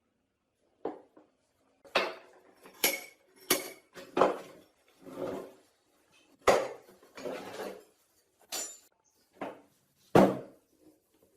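Metal parts of a hydraulic floor jack knocking and clinking as they are handled, about a dozen separate irregular knocks with the loudest near the end.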